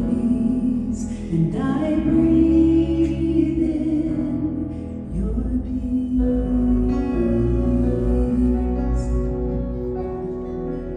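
Two women singing a worship song together into microphones over live instrumental accompaniment. The singing stops near the end while the accompaniment carries on.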